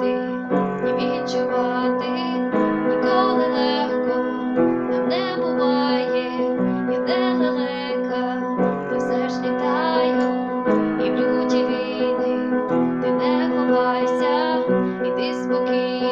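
Instrumental music led by piano or electric keyboard: sustained chords that change about every two seconds, with a wavering melody above them.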